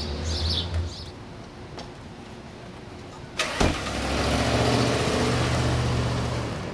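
A sharp click about halfway in, then a Ford Expedition SUV's engine running as it pulls away, getting louder for a couple of seconds and holding steady.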